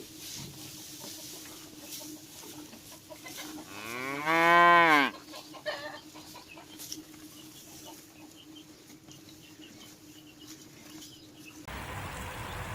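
A cow mooing once, about four seconds in: a single call of about a second and a half that rises and then falls in pitch.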